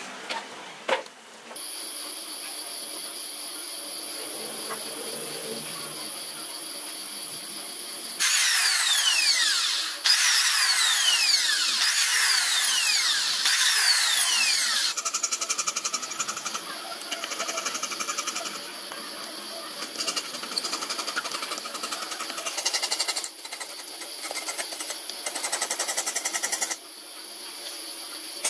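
A small electric power tool cutting into the base of a turned wooden piece, its motor running with a high steady whine. It is louder and harsher for several seconds in the middle, then goes into a fast, even pulsing as it works.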